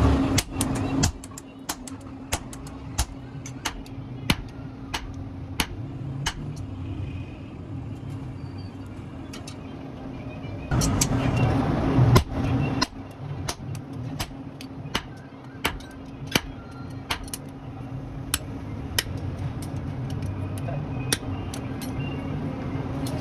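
Irregular hammer blows on steel, about one or two a second, over a steady low hum, with a louder rush of noise for a couple of seconds near the middle.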